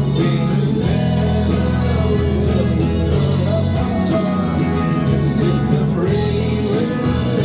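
A live band playing a song: a singing voice over guitar and bass, with drum cymbals keeping a steady beat.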